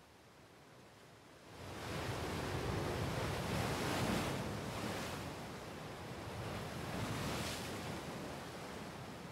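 Sea surf washing onto a sandy beach, coming in about a second and a half in and swelling twice as waves break.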